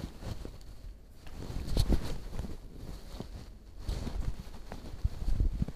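Handling noise from a handheld phone being moved about: irregular low bumps, rubbing and scattered clicks, as fingers shift against the phone near its microphone.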